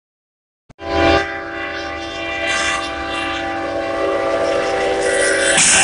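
Locomotive air horn sounding one long chord of several steady notes. It starts abruptly about a second in. Near the end a sudden loud burst of noise joins it.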